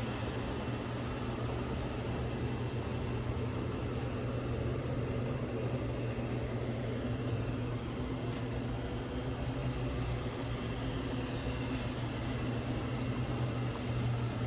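Robot vacuum cleaner running: a steady motor hum with an even whirring noise.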